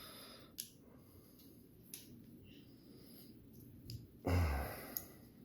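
A few faint, scattered clicks of small metal knife parts as a folding knife's pivot piece is worked into the blade and frame, then a short breathy exhale, a sigh, about four seconds in.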